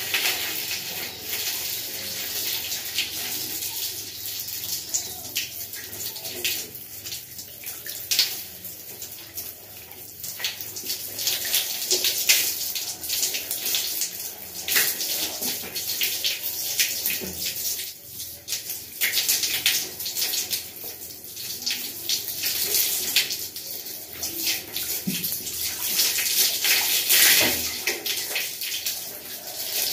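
Water poured from a plastic mug over long hair and splashing down, with irregular splashes and drips as hands rinse the wet hair.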